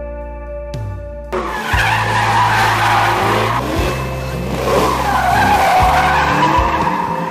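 A car's tyres squealing through a long skid that starts about a second in, the screech wavering up and down in pitch, with the engine running hard underneath and background music continuing.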